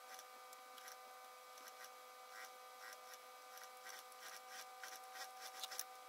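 Faint rustling and soft irregular clicks of a fur coat and its lining being handled and turned, over a steady thin electrical hum.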